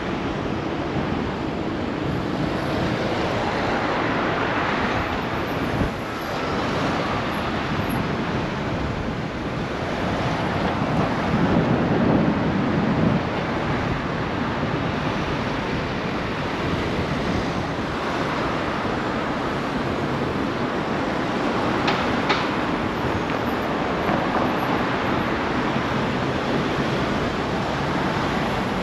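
Wind rushing over the camera's microphone while riding a bicycle, a steady rushing noise mixed with road traffic. About three-quarters of the way through come two short, high sounds close together.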